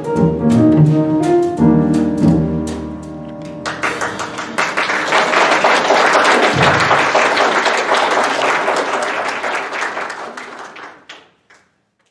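Jazz piano trio of acoustic piano, upright double bass and drums played with brushes, ending a tune; about four seconds in, audience applause takes over and fades away near the end.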